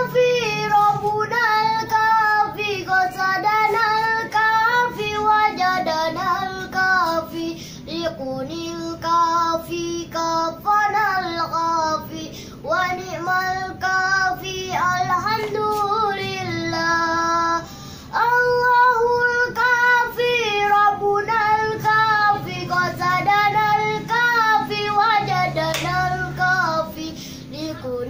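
A young boy singing a sholawat, an Islamic devotional song, in long ornamented phrases whose notes waver and bend, with short breaths between phrases.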